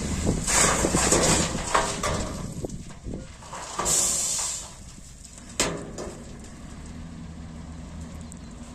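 Heavy machine engine running at idle. Clatter comes in the first two seconds, a short hiss about four seconds in, and one sharp knock soon after.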